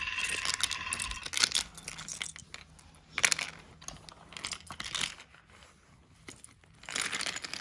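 Small plastic toy bulldozer being pushed about by hand, its plastic parts rattling and scraping in short irregular bursts. A steady high tone stops about a second in.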